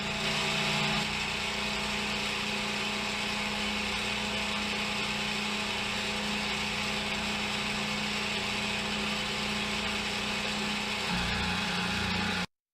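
PM727M CNC milling machine with its spindle running at about 1700 RPM and an end mill cutting steadily: a constant hum with a hiss of cutting. It cuts off abruptly near the end.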